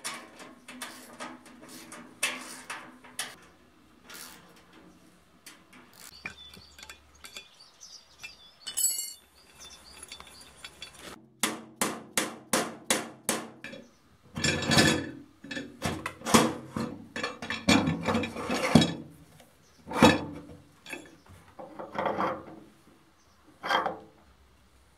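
Hand work on steel mower parts: clinks of bolts and metal pieces, then a quick run of mallet taps, about four a second, as a ball bearing is driven into its steel housing, followed by heavier knocks.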